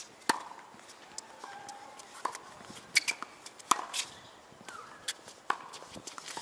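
Tennis rally on a hard court: a string of sharp racket-on-ball hits and ball bounces, the near ones loudest, with short sneaker squeaks on the court surface between them.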